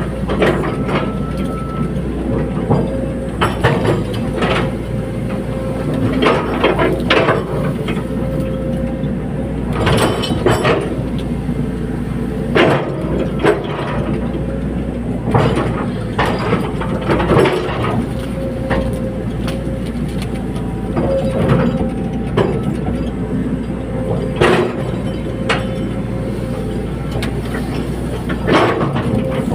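Caterpillar 320D hydraulic excavator working: its diesel engine runs steadily under a string of irregular metallic clanks and knocks.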